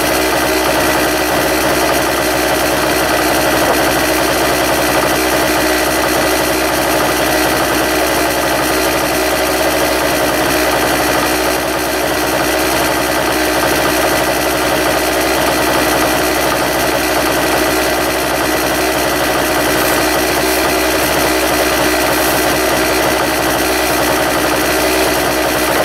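An engine running steadily at idle: an even, unchanging mechanical hum.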